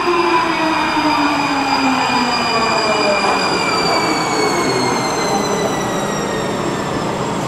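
Warsaw Metro train slowing down, its traction motors whining in several tones that fall steadily in pitch as it brakes, over loud wheel and rail noise.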